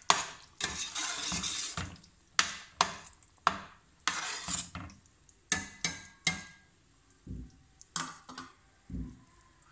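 Long metal spoon stirring peas in tomato sauce in a stainless steel pot, scraping and clinking against the pot's sides and bottom. The stirring thins out about two-thirds through, leaving a few scattered knocks and clinks.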